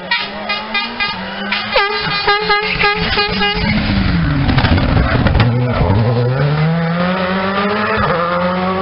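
Škoda Fabia rally car's engine at full throttle as the car approaches, passes and pulls away. The engine note dips as it goes by, then climbs in steps through the gears. Over the first three seconds a rapid pulsing, horn-like tone sounds several times a second.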